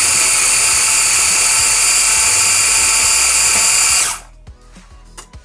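KitchenAid 3.5-cup electric food chopper running steadily as it chops cooked shrimp, then cutting off suddenly about four seconds in, followed by a few light clicks.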